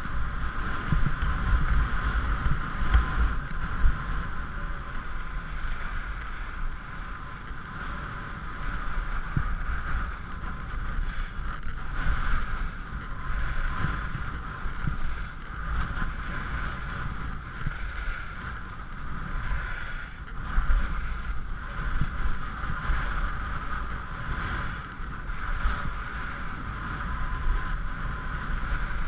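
Skis sliding and scraping over groomed snow on a downhill run: a steady hiss that swells and fades with the turns, over a low rumble of wind on the microphone.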